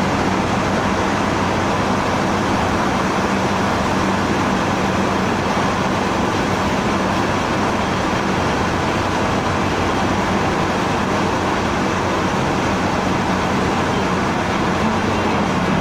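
Steady road noise of a car driving at speed, heard from inside its cabin: an even rush of tyres on asphalt over a low engine hum, unchanging throughout.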